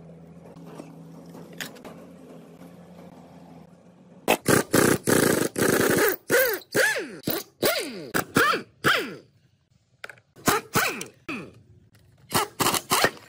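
Impact wrench fired in a string of short bursts, its motor whirring up and down with rattling hammer blows as it loosens the bolts of an old BMW gearbox casing. The bursts start about four seconds in, after a few quieter seconds, and come in several groups with short pauses between them.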